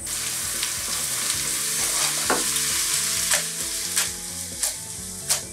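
Sliced artichoke frying in olive oil in a frying pan, sizzling steadily while it is stirred and tossed. A few sharp clicks come through the sizzle in the second half.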